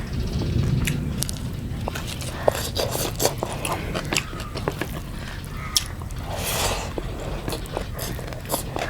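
Close-up mukbang eating: chewing and biting food, with scattered clicks and scrapes against the plate.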